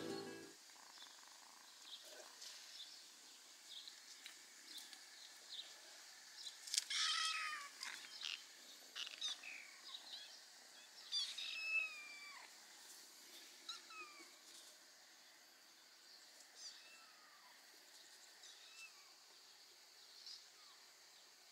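Kittens mewing now and then: a few short high mews that bend in pitch, the loudest about seven and eleven seconds in, with fainter ones later.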